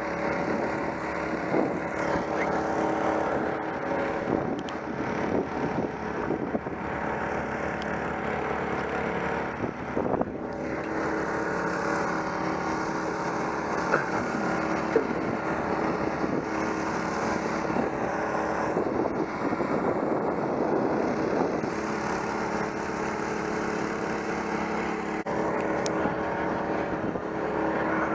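An engine running steadily at a constant speed, a hum of unchanging tones without a break.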